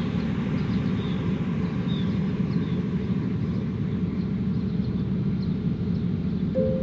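Electricity generators running during a power cut, a steady low hum.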